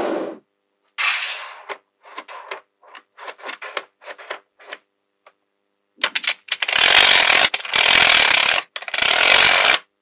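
Magnetic balls clicking as they snap together one by one, then long loud scraping bursts of the balls sliding across a hard surface in the second half, ending abruptly.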